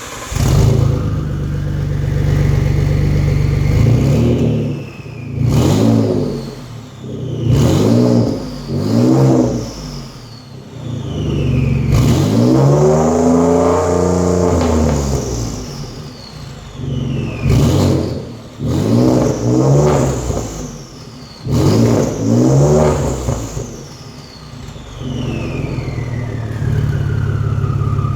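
Ford 3.5 EcoBoost twin-turbo V6, straight-piped with no cats or resonator, revved about ten times from idle, one rev held longer midway. After each rev a high turbo whistle glides down as the turbos spool down.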